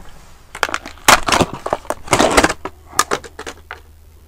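Plastic packaging crinkling and rustling in loud, irregular bursts as a new splitting axe is unwrapped.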